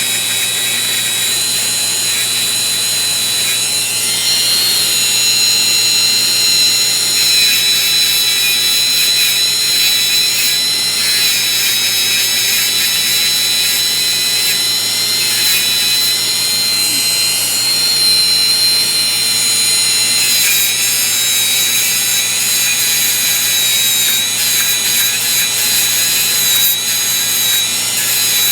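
Small high-speed power tool running steadily with a high whine, its 400-grit plastic abrasive wheel scrubbing a metal tool part and cleaning out its grooves.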